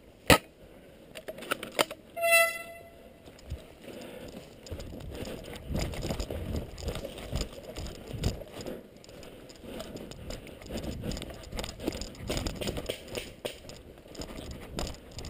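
Footfalls and gear rattling as an airsoft player moves, irregular thuds with clatter through most of the clip. The rattling is preceded by a sharp click just after the start and a brief ringing tone about two seconds in.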